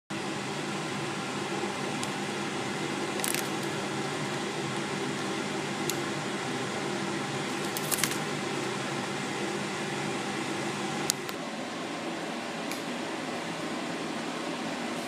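Steady background hum with a few sharp crinkles and clicks as a snack in a plastic wrapper is handled and opened. The loudest crinkling comes about eight seconds in.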